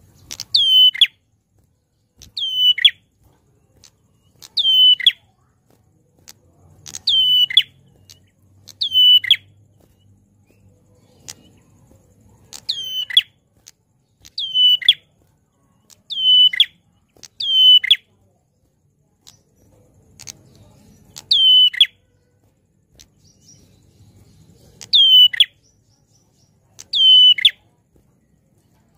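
A caged prenjak klawu (ashy tailorbird) calling loudly: sharp, high downslurred notes, one or two at a time, repeated about every two seconds with a few longer pauses.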